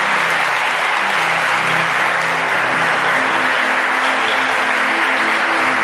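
Electronic keyboard playing soft sustained chords that change about three seconds in, under a steady wash of congregation applause.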